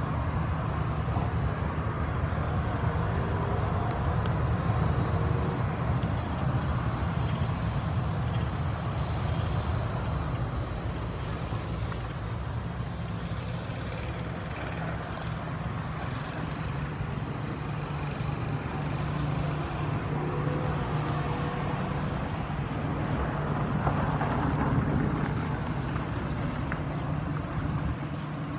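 Boeing 737-800 jet engines running at low taxi power as the airliner rolls slowly past: a steady low drone with jet hiss over it.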